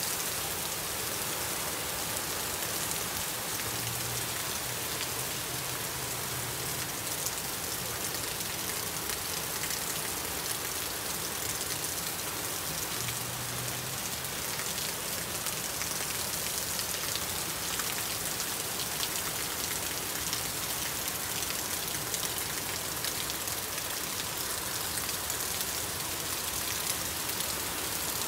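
Heavy rain pouring onto wet asphalt pavement, a steady, even hiss of countless drops hitting the hard surface.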